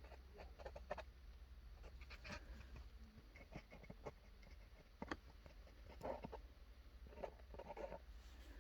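Faint scattered clicks and taps of small parts and a glue tube being handled, over a low steady hum.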